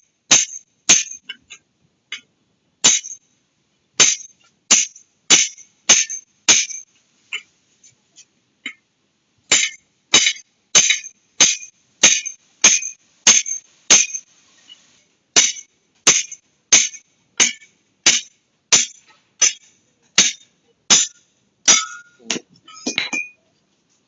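A long series of sharp, bright clinking strikes, roughly one every two-thirds of a second, each with a short ring. There is a sparser stretch with only faint ticks about a third of the way through.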